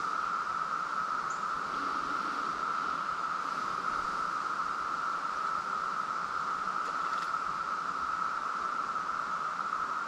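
Chorus of Brood X periodical cicadas (17-year cicadas), a steady, unbroken high drone held at one pitch.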